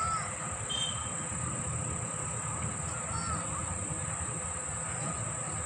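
Insects droning steadily at a high pitch over a low rumble, with a couple of short chirping calls, one at the start and one about three seconds in.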